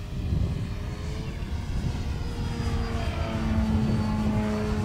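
Dualsky brushless electric motor and 17x12-inch propeller of a large scale RC model plane in flight: a steady whine with a slight drift in pitch, getting louder toward the end. Low wind rumble on the microphone runs beneath it.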